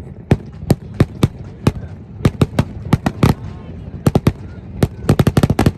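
Fireworks grand finale: sharp shell bursts going off irregularly, one to three a second, over a low rumble, crowding into a rapid volley near the end.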